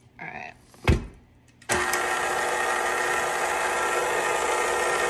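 A single knock just under a second in, then a KitchenAid electric mixer switches on at about a second and a half and runs steadily, beating a pound cake batter.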